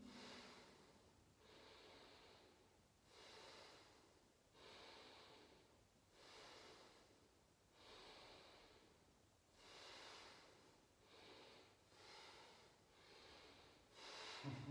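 Faint, slow, even breathing during seated meditation, a soft breath in or out about every one and a half seconds.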